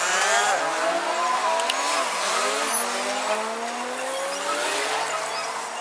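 Motor vehicle engines on a street, several at once, their pitch rising slowly as they accelerate and pass.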